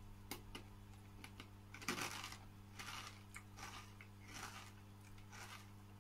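Faint crunching of crisp Calbee Jagarico snack sticks being chewed, short crackly crunches at an uneven pace of about two a second, the biggest about two seconds in. A paper snack cup rustles as fingers reach into it, over a steady low electrical hum.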